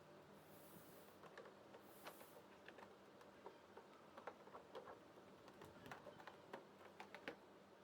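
Faint, irregular small clicks and ticks from hands working with small parts, with two short soft hisses in the first couple of seconds.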